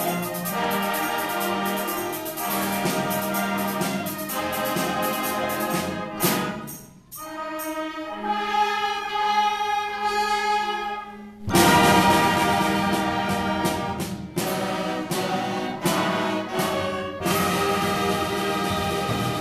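Concert band of woodwinds, brass and drum kit playing sustained full chords. About halfway through it drops to a softer, thinner passage for a few seconds, then the full band comes back in loudly with percussion strikes.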